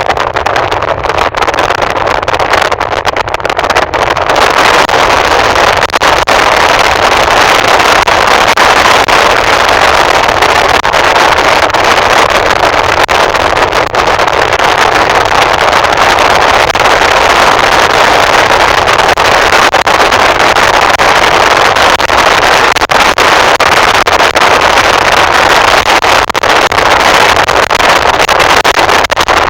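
Steady, loud rushing of wind and road noise picked up from a moving vehicle, a little louder after about four seconds.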